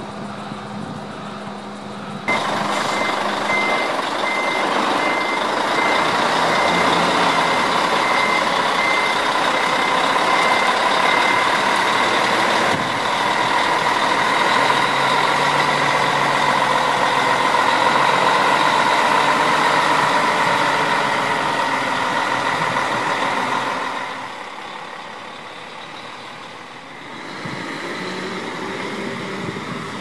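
Heavy diesel truck engine running as the crane truck manoeuvres, with a reversing beeper pulsing from about two seconds in. The engine noise stays loud, then falls away about 24 seconds in as the truck pulls off.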